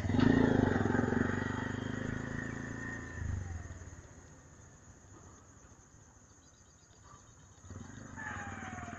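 A motor vehicle passes close by and its engine fades away over the first three seconds. A quieter stretch follows with faint insect chirping, and near the end another vehicle approaches with a falling whine.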